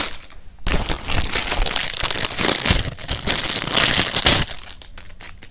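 Clear plastic packaging bag crinkling and rustling as a squishy toy is handled and taken out of it. The crinkling starts about half a second in and dies away near the end.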